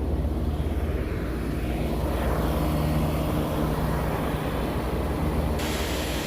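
Two large rooftop HVAC units running normally, a steady loud drone of fans and compressors with a low hum. About five and a half seconds in, a hiss suddenly grows brighter.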